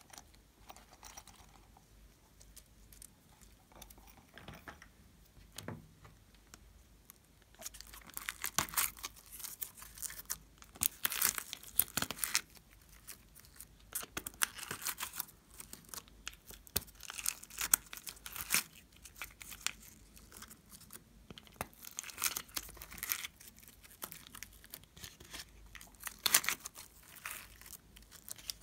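Small polystyrene foam beads crackling and rustling as they are scooped up by hand and pressed into slime. The crackles come in dense clusters after a few seconds of quieter handling.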